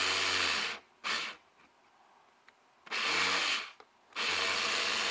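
Tyco HO slot car's small electric motor whirring on a dyno, cutting out and starting up again several times. The pickup shoes are losing contact, which the owner puts down to a shoe problem and touchy running.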